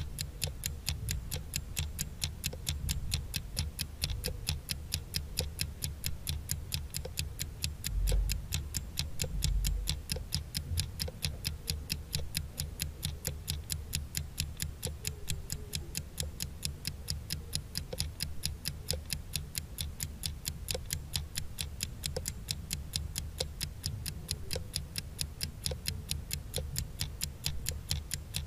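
Countdown-timer sound effect: a clock ticking fast and evenly, over a low rumble that swells briefly about eight and again about nine and a half seconds in.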